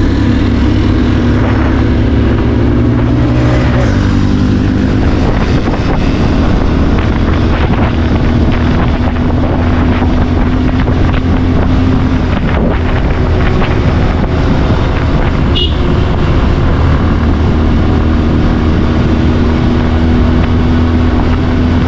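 Bajaj Pulsar 150's single-cylinder engine running at road speed, with wind rushing over the microphone. The engine note steps down once about four seconds in, then holds steady.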